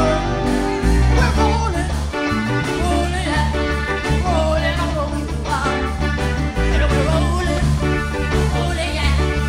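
Live band playing an up-tempo song, with electric guitars, bass guitar and drums under a woman singing lead through a microphone.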